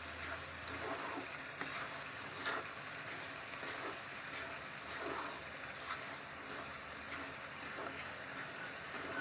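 Wooden spatula scraping and turning wheat flour and sugar roasting in a steel kadai: irregular soft scrapes and taps over a faint steady hiss.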